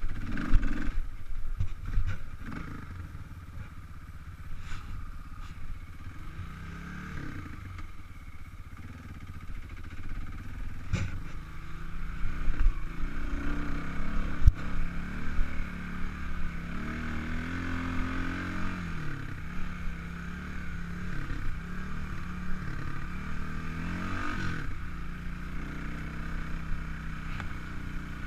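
Kawasaki KLX 300 dirt bike's single-cylinder four-stroke engine running on a trail ride, its pitch rising and falling as the throttle opens and closes, with one longer rev and drop about two-thirds through. A few sharp knocks cut through the engine sound.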